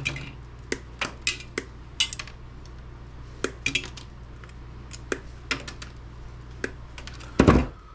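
Scattered light clicks and clinks of small metal scrap parts and tools being handled on a workbench, with a louder clatter near the end, over a steady low hum.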